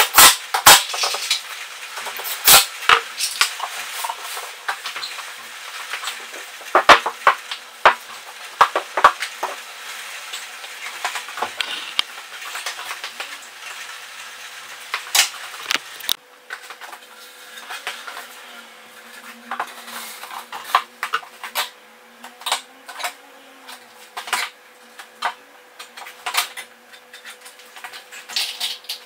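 Irregular workshop clatter: sharp clicks and knocks from tools, screws and MDF boards being handled and set down.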